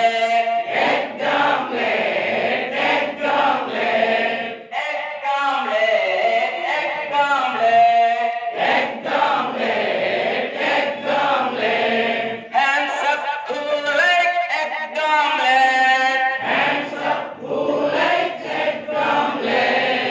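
A group of people singing a chanted action rhyme together, in phrases of about four seconds with brief pauses between them.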